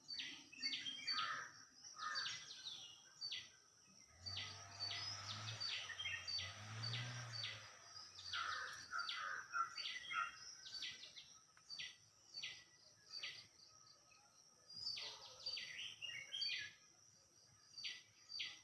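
Songbirds calling, one repeating a short, high, downward-sliding call about twice a second, with other birds chirping in between.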